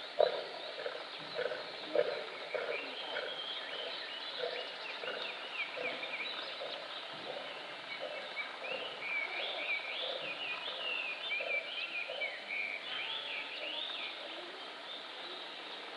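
Outdoor ambience of small birds chirping, busiest in the second half, over a string of short, lower-pitched sounds about twice a second that fade out over the first half.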